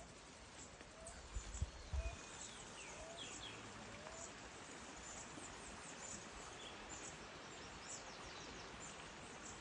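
Faint outdoor garden ambience: a steady low hiss with distant birds chirping now and then, mostly in the first half, and a couple of soft knocks in the first two seconds.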